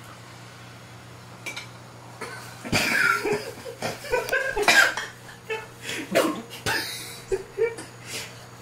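A man coughing and gagging in a string of irregular bursts, starting a couple of seconds in, as he reacts to swallowing a raw egg yolk.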